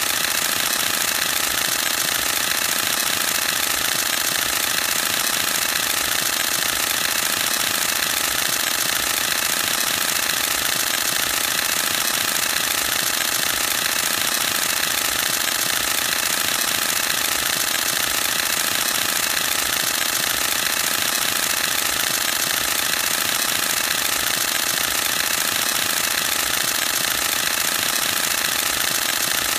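Canon EOS-1D X Mark II shooting a continuous high-speed burst: mirror and shutter clattering in rapid, even succession without a break.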